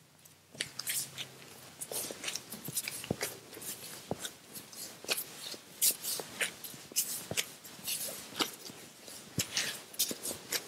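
Disposable plastic gloves crinkling and crackling irregularly as hands knead and press a stiff ball of biscuit dough, starting about half a second in, with soft squishing of the dough.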